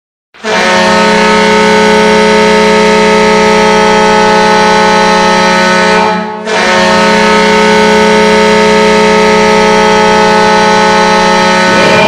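Hockey goal horn blaring a loud, steady chord of several tones at once, in two long blasts of about six seconds each with a short break between them.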